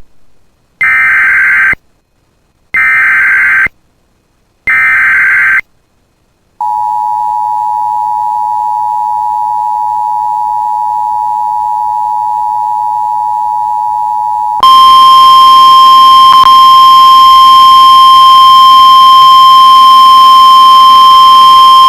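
Emergency Alert System signal. It opens with three short bursts of buzzing SAME digital header data, about a second apart. Then the two-tone EAS attention signal holds steady for about eight seconds. Then a louder single steady tone, the weather-radio alert tone, begins, with a brief click partway through.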